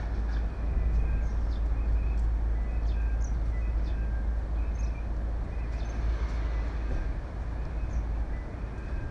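Steady deep outdoor rumble with an even hiss over it, dotted with a few short high chirps.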